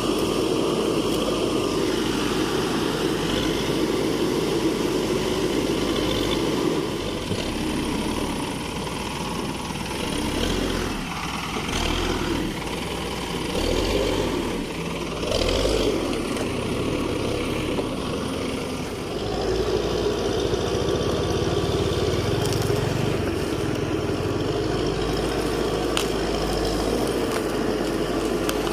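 Escorts Digmax II backhoe loader's diesel engine running steadily, its sound dipping and shifting through the middle as the machine works, then steady again near the end.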